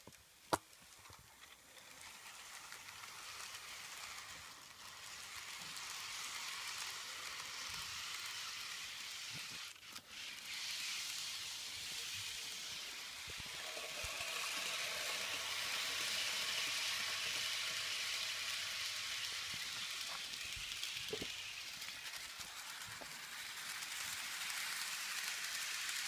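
Kato model steam train running on its track: a steady hissing running noise that builds over the first few seconds and dips briefly about ten seconds in.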